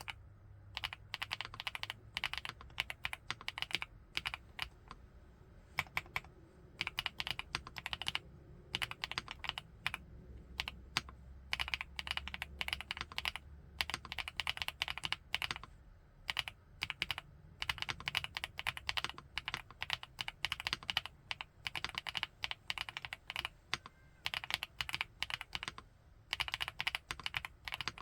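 Typing on an FL-ESPORTS Geo75 mechanical keyboard with Kailh x Funkeys BCP switches: quick runs of keystrokes in bursts, with short pauses between them.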